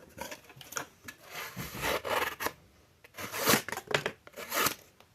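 Kitchen knife scraping in a few rough strokes, each under a second long, with short gaps between them.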